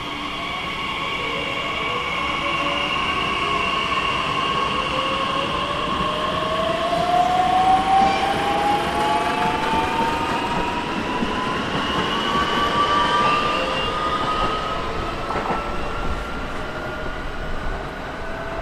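Electric train pulling away, its traction motors whining in a tone that rises steadily in pitch as it gathers speed, over steady running noise.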